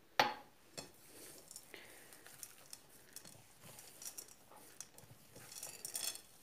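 Hands kneading soft cookie dough with chocolate chips in a bowl: faint, irregular squishing and pressing, with one sharp knock just after the start.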